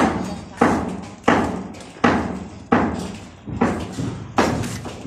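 Repeated heavy blows, about seven in a row, roughly one every two-thirds of a second, each sharp at the start and then dying away.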